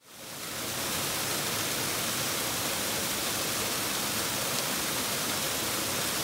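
Small creek waterfall splashing into a rock pool: a steady rushing of water, fading in at the start.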